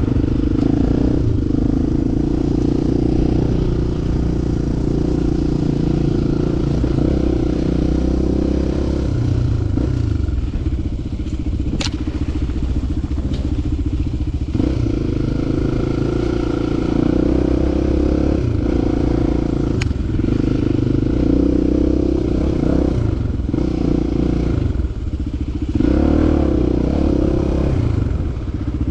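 Enduro motorcycle engine running as it is ridden off-road, its pitch rising and falling with the throttle, with clattering and two sharp knocks.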